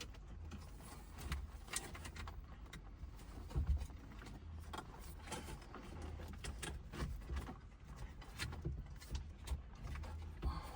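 Scattered light clicks and knocks of wiring connectors and plastic being handled behind a car stereo, over a low steady hum.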